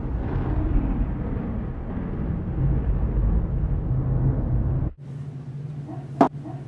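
Loud, deep rumbling explosion sound effect, the blast of a thrown grenade, that cuts off abruptly about five seconds in. After it comes a steady low hum with two sharp knocks near the end.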